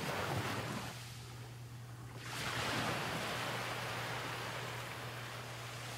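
Rushing noise like surf or wind that swells, drops back about a second in, then swells again and holds, over a low steady hum.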